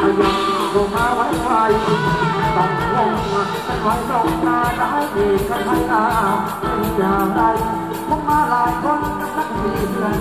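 Live band playing Thai ramwong dance music, a singer's melody over a steady beat.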